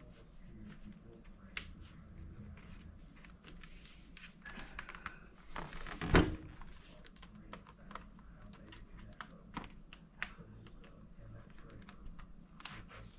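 Irregular small plastic clicks and taps from a pry tool and fingers working at a laptop's bottom cover, with one loud thump about six seconds in.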